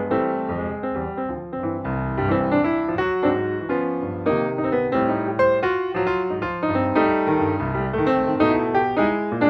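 Background piano music: a steady stream of struck notes over a bass line.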